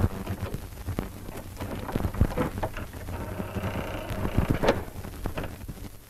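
Manipulated film soundtrack: a dense, rain-like rumbling hiss broken by many irregular clicks and thumps. Faint high tones come in about halfway through, and the sharpest hits fall about two seconds and four and a half seconds in.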